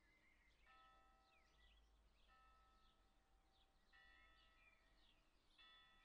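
Church bell tolling in the distance, faint, four strikes about a second and a half apart, each left to ring on. Birds chirp throughout.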